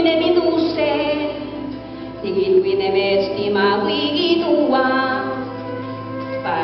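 A woman singing a song in Nahuat (Pipil), long held notes with vibrato that change pitch every second or so.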